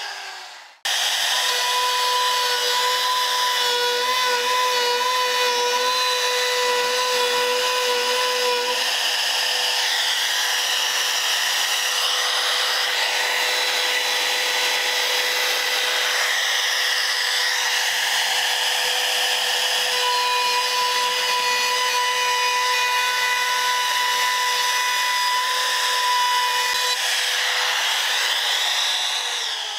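Handheld wood router running at speed while cutting a groove along an oak crossbow stock: a steady motor whine over the rasp of the bit in the wood. It comes in abruptly about a second in and starts to wind down at the very end.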